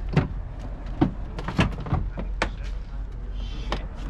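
Irregular sharp clicks and knocks, about half a dozen in four seconds, over a low steady hum: hands working on a car's taillight assembly.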